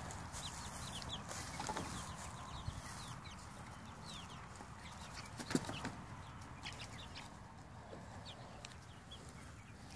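A flock of six-to-seven-week-old chicks peeping, with many short high chirps that slide down in pitch, scattered throughout. A few soft knocks, the clearest about five and a half seconds in.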